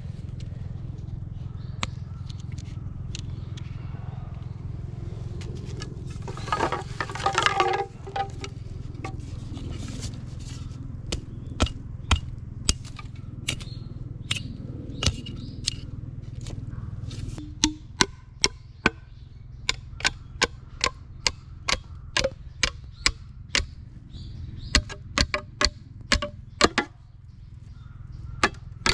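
A series of sharp knocks, coming about two a second in the second half, over a steady low hum that stops about two-thirds of the way in. There is also a short rustling burst about a quarter of the way in.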